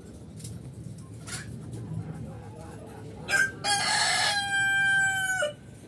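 A rooster crowing once, about three seconds in. It opens with a short rough note and ends in a long, loud, steady held note that drops off sharply at the close.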